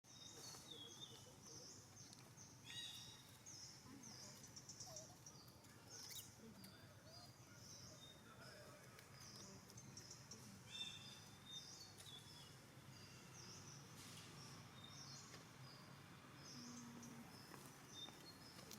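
Faint outdoor bird chirping: many short, high notes repeating throughout, over a low background hum.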